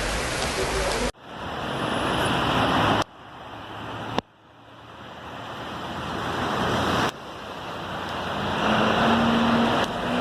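Heavy rain and rushing floodwater: a steady loud hiss, cut off abruptly several times and building back up after each cut. A faint low engine-like hum rises slightly near the end.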